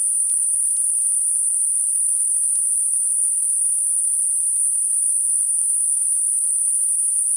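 Steady synthetic narrowband noise centred on 9.5 kHz, a very high-pitched hiss with a bell-curve roll-off, generated to mask high-frequency tinnitus.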